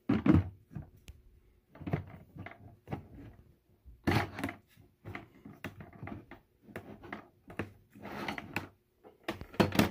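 Hollow plastic clunks, clicks and rattles from a Bissell SpotClean Pro's clear plastic tank and its pivoting carry handle being handled and moved about, in irregular clusters, with the loudest knocks at the start and near the end.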